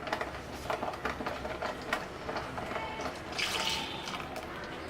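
Water with leftover masala paste being poured from a mixer jar into the curry pan, a liquid pouring sound with a few light knocks of the jar.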